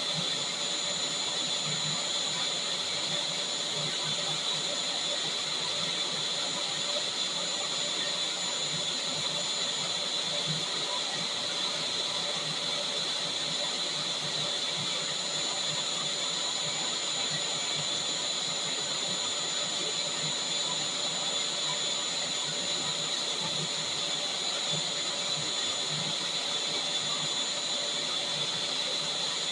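Vacuum cleaner motor running steadily, a constant airy hiss with a high whine on top.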